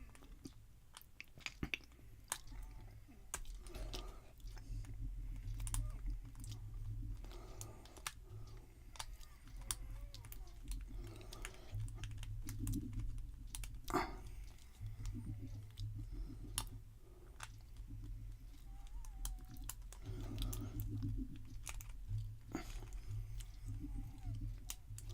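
Lock pick and tension wrench working the pins inside a Master Lock No. 77 padlock: scattered small clicks and scratching over a low steady hum.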